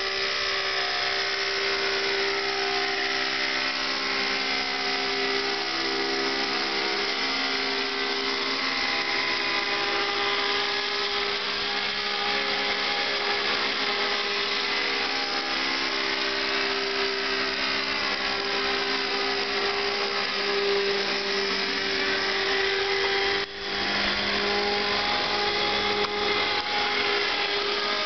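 Thunder Tiger Raptor 50 RC helicopter's nitro two-stroke glow engine running at a steady high pitch in flight, the pitch wavering slightly, with a momentary drop in loudness about 23 seconds in.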